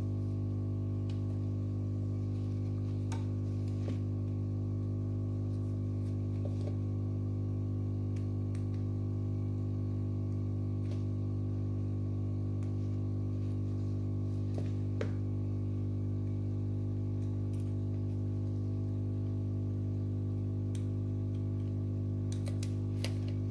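A steady low hum runs throughout, with faint scattered clicks and taps as the circuit board and plastic phone housing are handled and pressed together.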